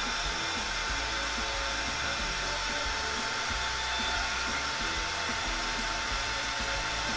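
Cordless drill running steadily at speed with a steady whine, spinning an airbrush needle against a SharpenAir abrasive pad to polish its tip.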